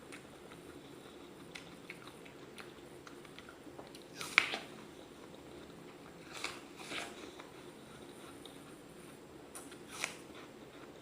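A person biting into a raw apple and chewing it: a loud crisp crunching bite about four seconds in, more crunching bites around six to seven seconds and another near the end, with quiet chewing between.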